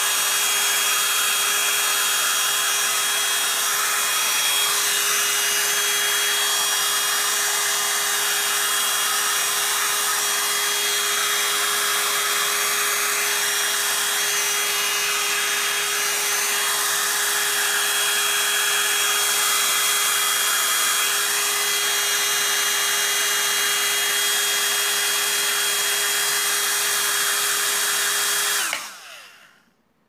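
A 20-year-old compact 'Turbo Dryer' hair dryer running, a steady rush of blown air with a constant motor hum under it. It cuts off near the end, dying away within about a second.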